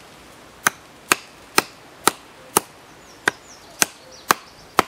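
Batoning wood: a wooden baton strikes the spine of a bushcraft knife to drive the blade down through a small piece of wood. Nine sharp knocks, about two a second.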